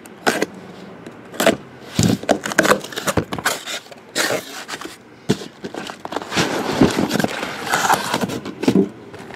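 Cardboard shipping case being opened by hand: an irregular run of scrapes, rustles and knocks as its flaps are pulled back and the boxes packed inside are uncovered.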